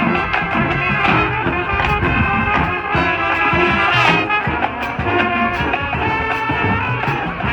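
High school marching band playing a field show: brass sustaining chords over a steady beat of marching percussion, swelling to a loud accent about four seconds in.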